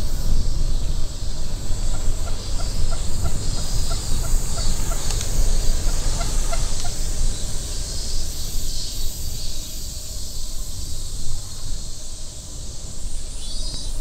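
Wind rumbling on the microphone of a moving bicycle, over cicadas buzzing in the park's trees. From about two to seven seconds in, a run of short, evenly spaced calls, about three a second, rises over the din.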